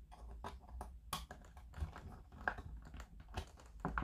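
Irregular small clicks and taps from a small screwdriver working the screw terminals of a Sonoff Mini smart switch as a wire is fastened, over a low steady hum.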